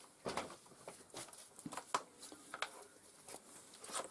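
Faint, scattered clicks and light knocks, a dozen or so irregular taps, with no steady fan or motor noise.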